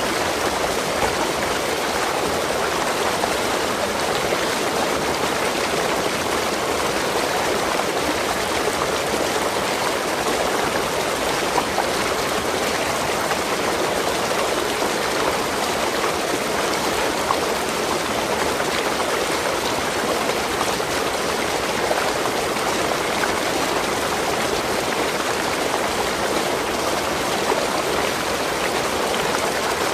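Waterfall: a steady rush of falling, splashing water.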